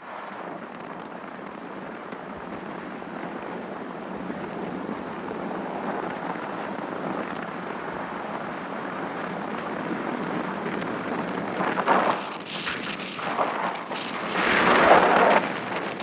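Strong wind rushing steadily and slowly building, with two loud gusts buffeting the microphone, one about twelve seconds in and a bigger one near the end.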